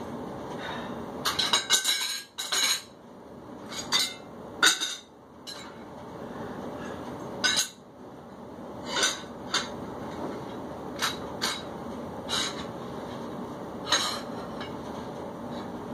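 Metal workout weights clinking and clanking against each other, about a dozen sharp ringing knocks at irregular intervals, some in a quick cluster near the start, over a steady low hum.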